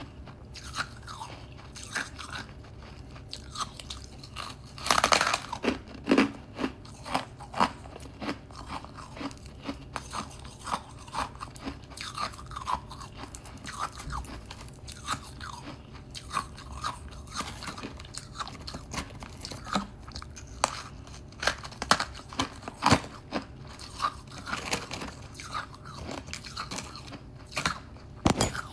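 A person biting and chewing hard frost: a steady run of crisp crunches, with a louder bite about five seconds in and another near the end.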